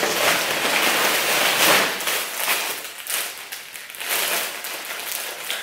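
Clear plastic polybag crinkling and rustling as a garment in it is handled, an uneven hiss that comes in surges and eases off after the first couple of seconds.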